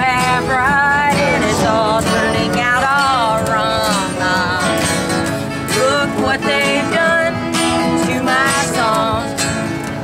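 Live acoustic guitar strumming with a sung melody over it.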